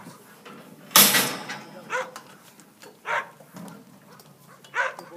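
Kelpie working sheep, giving a few short sharp barks, with a loud bang and rattle about a second in.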